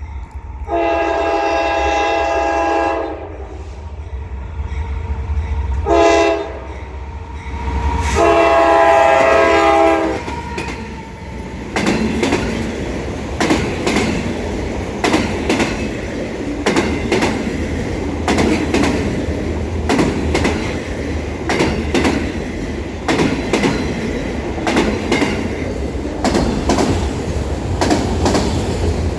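Locomotive air horn sounding a chord in three blasts: long, short, long. Then the train rolls past with a steady rumble and repeated clickety-clack of wheels over rail joints.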